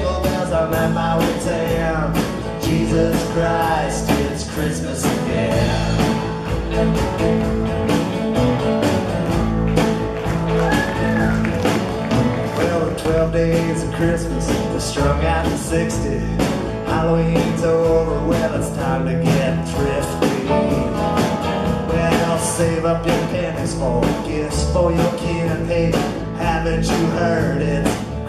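Live band playing a song: strummed acoustic guitars, electric guitar and a drum kit keeping a steady beat, with a voice singing over them.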